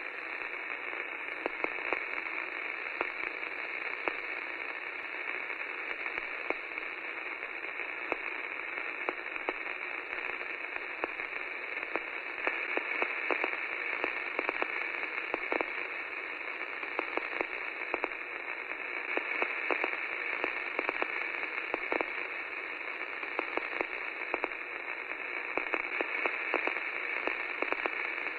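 Steady static hiss, thin and confined to the middle of the range, with frequent small clicks and crackles scattered through it.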